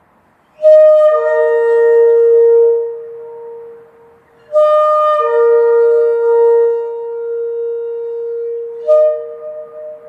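Shofar (ram's horn) blown in two long blasts, each opening on a higher note and dropping to a lower held note. A shorter third blast starts near the end.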